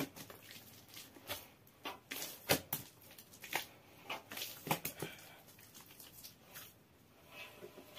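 Hands kneading a large mass of bread dough in a metal basin: irregular short slaps and squishes as the dough is pressed, folded and pulled.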